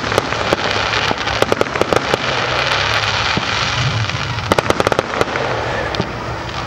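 Aerial fireworks going off: clusters of sharp pops and crackles from sparkling shells, about half a second in, again around one and a half to two seconds, and around four and a half to five seconds, over a steady noisy background.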